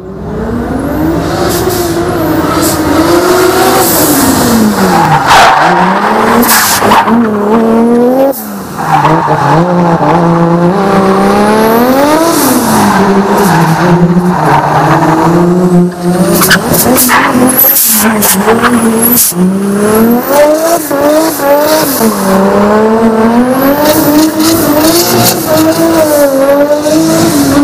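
Nissan 180SX with a swapped Toyota 2JZ straight-six driven hard while drifting, the revs climbing and dropping over and over, with the tyres squealing.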